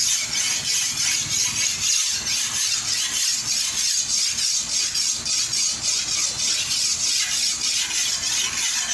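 Bolo (machete) blade being sharpened by hand: quick, even, repeated rasping strokes of the blade against the sharpening tool.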